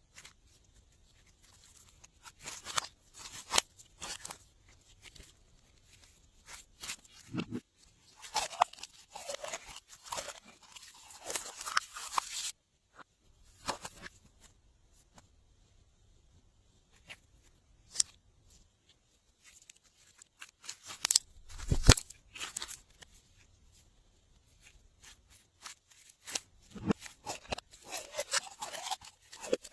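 Glossy slime being squished and mixed by hand, giving irregular clusters of sticky clicks, crackles and pops with short pauses between them. About 22 seconds in there is one louder thud.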